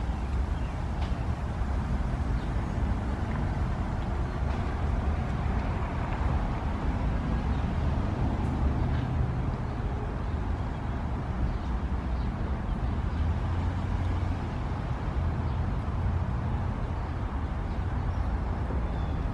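Steady low rumble with a hiss above it: outdoor background noise, with a few faint ticks.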